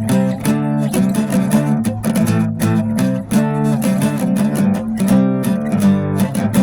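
Band music led by strummed acoustic guitar chords in a steady rhythm.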